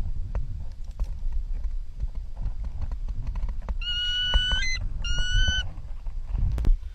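A bird of prey (elang) giving two long, flat, high whistled screams, the first about a second long and the second shorter, each with a slight upward lift at the end. They come over a steady low rumble and scattered clicks.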